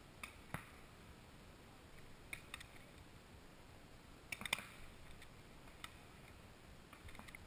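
Scattered faint sharp pops from paintball markers, pump guns and pistols, firing: a pair at the start, another pair a couple of seconds in, a louder quick cluster about four and a half seconds in, and a few more near the end.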